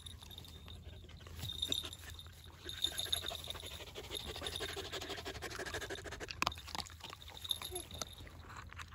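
Dogs panting close to the microphone, with a few sharp clicks.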